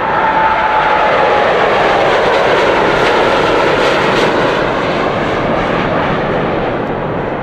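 Boeing 787 Dreamliner's twin jet engines at takeoff power as the airliner lifts off and climbs: a loud roar with a high whine that slides slightly down in pitch in the first two seconds, easing a little near the end as it climbs away.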